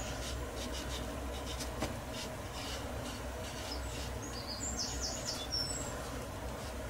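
Faint soft scratching and dabbing of a watercolour brush on rough paper, over a low steady hum, with a few faint high chirps about five seconds in.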